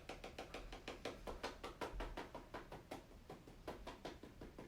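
Cornstarch being tapped out into a measuring cup: a quick, even run of soft ticks, about eight a second.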